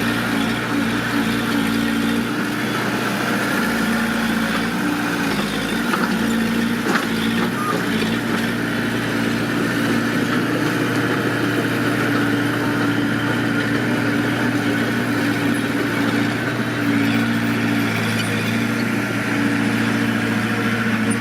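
Mitsubishi D20 bulldozer's diesel engine running steadily at an even speed.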